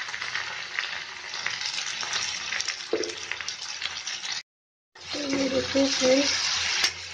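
Onion, tomato and capsicum sizzling in oil in a metal kadai, with a metal ladle stirring and scraping against the pan. The sound drops out for a moment a little past halfway, then the frying and stirring come back louder.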